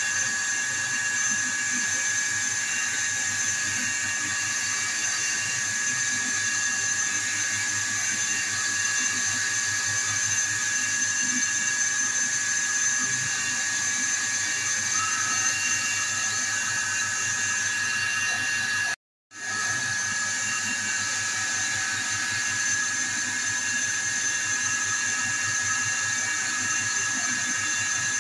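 Lathe running steadily with a high whine while a cloth is held against the spinning handle to polish it. The sound drops out abruptly for about half a second roughly two-thirds of the way through.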